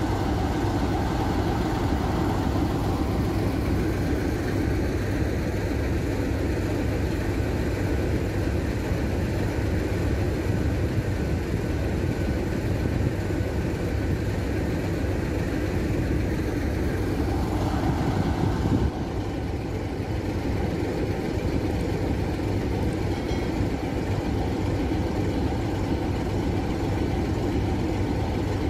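Diesel locomotive engine running steadily, a continuous low rumble that drops slightly about two-thirds of the way through.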